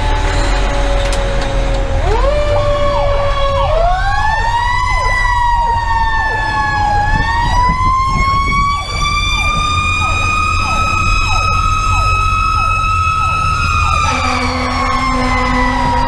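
Fire engine's Federal Q2B mechanical siren winding up into a rising whine about two seconds in and climbing higher, with an electronic siren's fast repeated yelps over it. Near the end the Q2B starts to wind down as a low air horn blast comes in, all over the steady rumble of the truck's Detroit Series 60 diesel.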